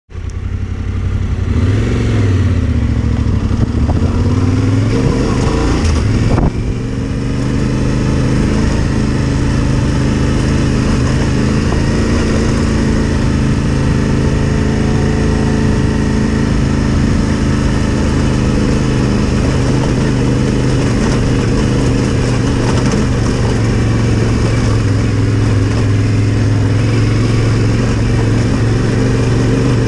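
Yamaha Ténéré 700's parallel-twin engine running as the motorcycle rides a dirt trail, its pitch rising and falling with the throttle for the first few seconds and then holding steady. There is a single sharp knock about six seconds in.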